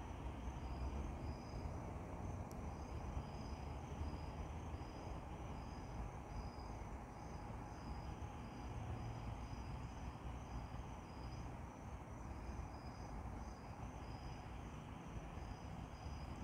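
Insects chirping in the trees in a steady, evenly repeating high-pitched rhythm, over a low, steady rumble.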